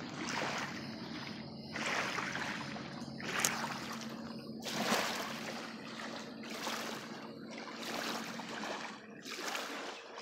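Small waves lapping and splashing at the lake shore, a wash every second or two, over a faint steady hum.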